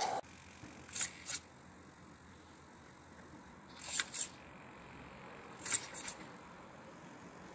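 Steam hiss cuts off abruptly right at the start, leaving a faint low background hiss broken by a few short sharp clicks. They come as a pair about a second in, a single click about four seconds in and a quick run of three near the end.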